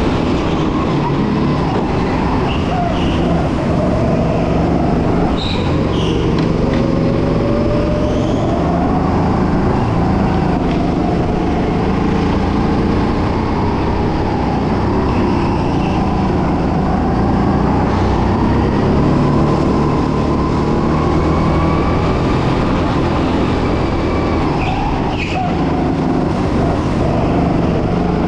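Racing kart heard from on board at speed, its motor pitch rising and falling through the corners over a steady rumble of running and wind noise.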